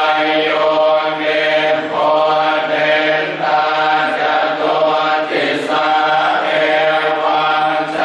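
A large group of Buddhist monks chanting Pali verses in unison on a steady, near-monotone pitch, phrase after phrase with brief dips between them.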